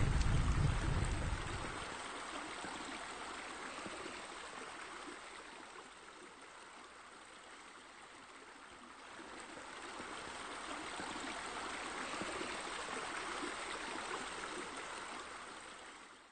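Steady rushing noise with no distinct events. A low rumble in the first two seconds fades away. The noise dips in the middle, swells again, and cuts off abruptly at the end.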